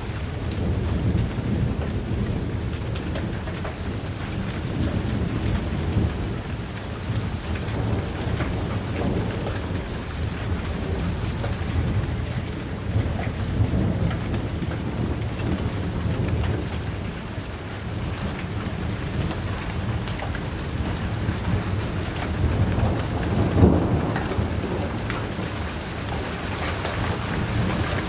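Heavy rain falling steadily under continuous rolling thunder, a deep rumble that never stops. One brief, louder burst of thunder comes about three-quarters of the way through.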